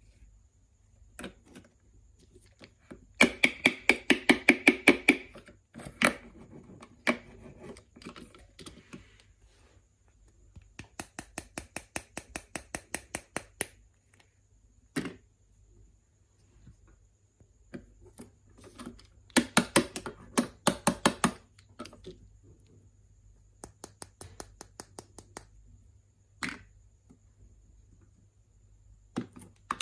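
Miniature kitchen utensils tapping quickly and rhythmically, several small sharp strikes a second in runs of one to two seconds, with single knocks and clinks between the runs.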